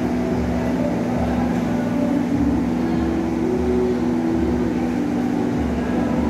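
Shade net making machine, a raschel warp-knitting machine, running: a steady mechanical hum with a low pulse repeating a little more than once a second.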